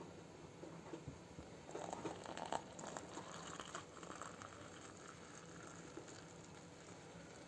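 Faint kitchen handling noises: a few light, irregular clicks and rustles about two to four seconds in, then only a low steady hiss.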